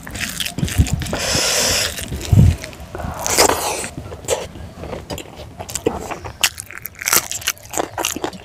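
Close-miked sounds of a person eating rice and pork fry by hand: chewing and crunching with many short clicks and crackles. A denser burst of crunching comes about a second in.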